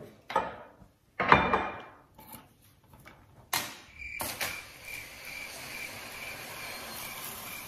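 Knocks and rustles of handling as someone moves close to the recording device, the loudest a short thump about a second and a half in and a sharp click about three and a half seconds in, then a steady faint hiss with a small high tone blipping in it.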